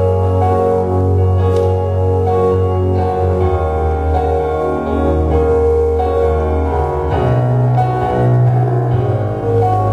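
Instrumental keyboard music: slow held chords over a deep bass note that shifts a few times, with no singing.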